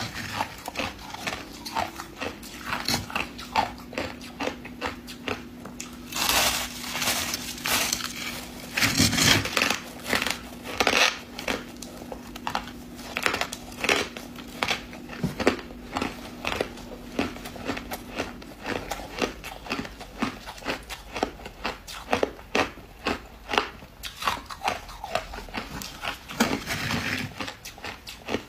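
Crushed ice being bitten and chewed, a long run of sharp, uneven crunches, with packed ice crumbling as it is broken apart by hand.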